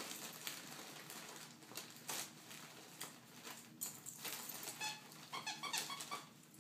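Dog tearing and chewing at wrapping paper, with the paper crackling in short scattered bursts, and a squeaky toy inside the present squeaking several quick times a little after five seconds.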